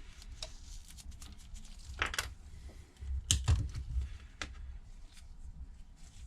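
Scattered small clicks and taps of hand tools handled against an iPad's frame, with two louder knocks about two and three seconds in.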